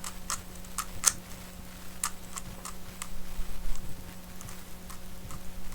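MoYu Tanglong 3x3 speedcube being turned quickly by hand, its plastic layers clicking in an irregular patter as they turn smoothly without catching.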